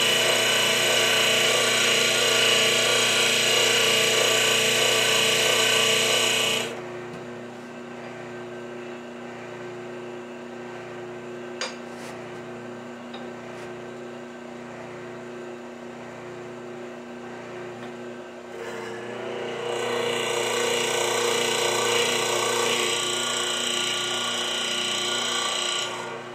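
A shop hydraulic press's pump running with a steady whine. It drops to a quieter hum about seven seconds in, with a single click a few seconds later, then whines loudly again from about nineteen seconds as the ram is brought down on the steel.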